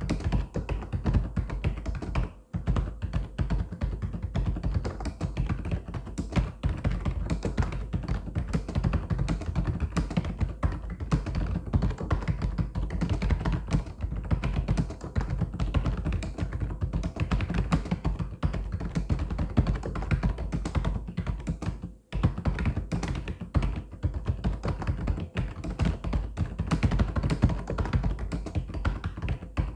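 Fast, continuous typing on a mechanical keyboard: a dense run of key clacks, with brief pauses about two seconds in and about twenty-two seconds in.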